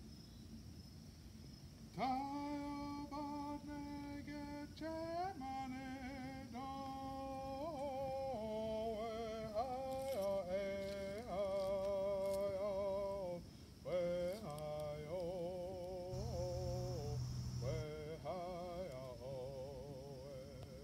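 A solo voice singing a slow melody in long held notes, some of them wavering, with short breaks between phrases; it comes in about two seconds in.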